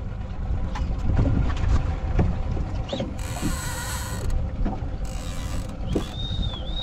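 Fishing reel's drag buzzing as a hooked fish pulls line off a bent trolling rod, with a short spell of buzzing a few seconds in and a whine that rises and falls twice near the end. Wind and the boat on the water rumble underneath.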